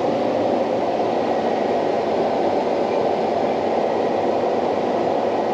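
Steady, even drone inside a John Deere combine's cab while it harvests wheat: the machine's running noise blended with the cab's air-conditioning fan.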